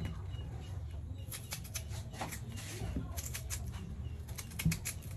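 A knife peeling the skin off a jicama (singkamas): quick crisp scraping strokes in runs, starting about a second in, with one low knock near the end.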